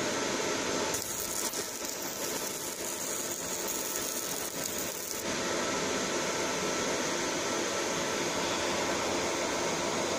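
Fiber laser marking machine burning a barcode into a plastic seal tag: a hiss starts about a second in and cuts off about four seconds later when the marking pass ends, over the steady fan noise of the machine.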